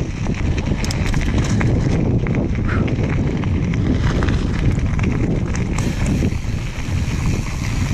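Mountain bike ridden over a dirt trail: rough tyre noise with frequent clicks and rattles, and wind buffeting the microphone.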